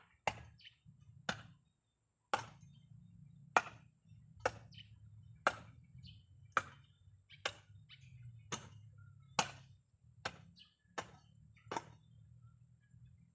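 Repeated chopping strikes of a hand tool, about one a second, thirteen sharp blows in all.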